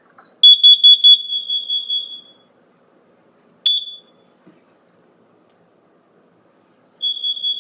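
Kidde 30CUAR-V combination smoke and carbon monoxide alarm beeping during its test cycle. A rapid run of high-pitched beeps starts loud and fades over about two seconds. A single chirp follows, then another quick run of beeps near the end.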